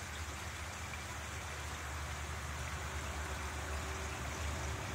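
Steady rush of flowing water from a stream and waterfalls, an even hiss with a low rumble underneath.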